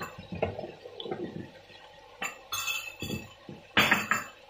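A spatula scraping and knocking against a wok while stir-frying minced chicken: a series of short clinks and scrapes, with the loudest burst near the end.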